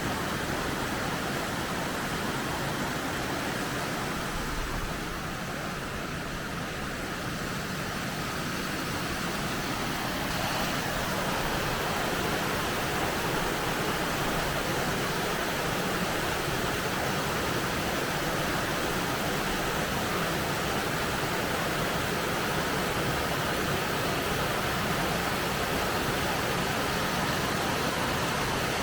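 Waterfall with heavy water flow: a steady, dense rushing of falling water, dipping slightly a few seconds in and then holding even.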